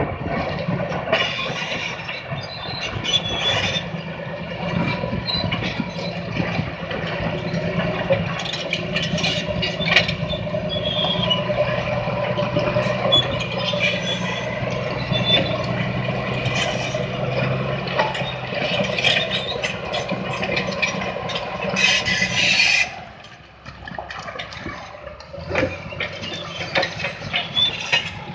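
Caterpillar D10 crawler bulldozer's diesel engine running hard, with its steel tracks clanking and giving short high squeaks as it drives over rock. About 23 seconds in, the engine sound drops away sharply, and near the end rock scrapes and grinds under the blade.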